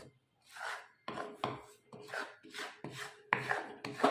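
Spoon or spatula scraping around a kadhai while stirring melted jaggery with spices, in quick repeated strokes about two or three a second.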